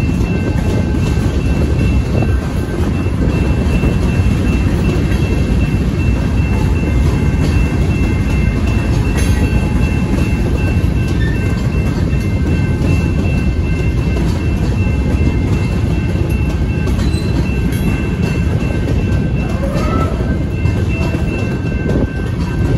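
Freight cars rolling through a grade crossing: a steady, dense rumble and rattle of steel wheels on rail, with faint steady high-pitched tones above it.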